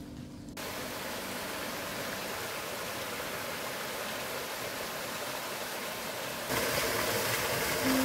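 Stream water rushing over rock slabs, a steady hiss. Near the end it changes to the louder splash of a small waterfall falling into a pool.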